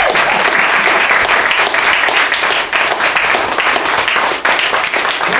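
Small audience applauding with dense, steady clapping.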